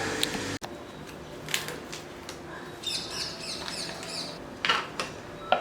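A bird chirping in a quick run of high notes, with a few light knocks before and after.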